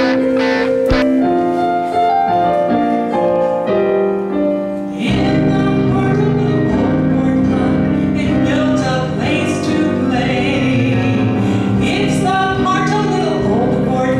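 A stage song: a keyboard plays held chords, then about five seconds in a fuller accompaniment comes in and a woman sings over it.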